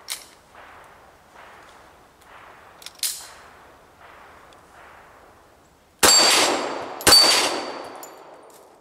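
.45 ACP pistol shots knocking down steel plates. Two loud hits about a second apart, each a sharp crack and a steel clang with a high ring that fades over a second or so. Two fainter sharp cracks come before them, one near the start and one about three seconds in.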